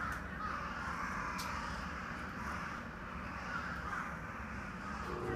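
Crows cawing over a steady low hum. Near the end a steady hum begins as the 115-series train's electric blower starts up.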